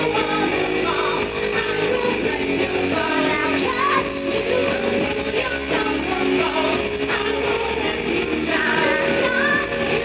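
Live band music with a woman singing lead vocals into a microphone.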